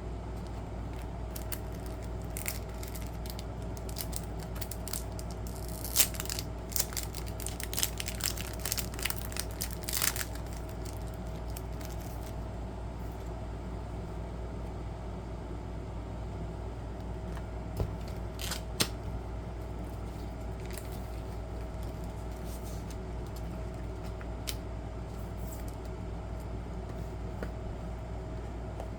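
Trading-card packaging being handled: a cluster of crinkling and clicking about six to ten seconds in, then a few single sharp clicks, over a steady low hum.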